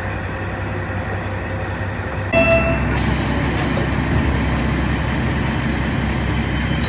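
A KiHa 40/47 diesel railcar's engine running steadily, with a step up in loudness about two seconds in. A brief tone sounds at that point, then louder running with a steady hiss as the railcar gets under way after the doors close.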